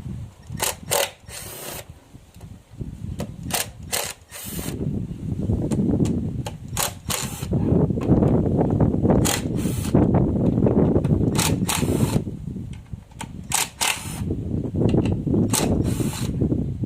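Ratchet wrench clicking in short runs, with a low rumble underneath.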